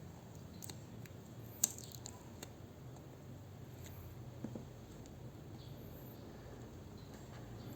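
Faint scattered clicks and taps of handling, the loudest about one and a half seconds in, over a steady low hum.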